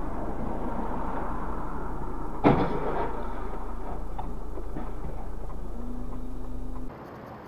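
Steady road and engine noise of a moving car, picked up by a dashcam, with one sudden loud thump about two and a half seconds in.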